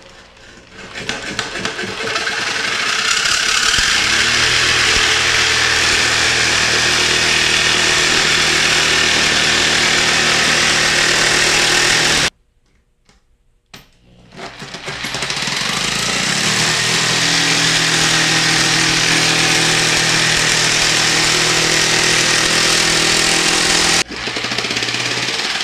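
Jigsaw cutting aluminium sheet, a loud steady buzzing saw with a rattle. It starts up about a second in, cuts out suddenly near the middle, then starts again and keeps cutting.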